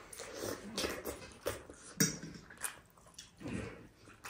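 Close-miked eating sounds: chewing and mouth smacking in short irregular bursts, with a few brief low pitched mouth sounds.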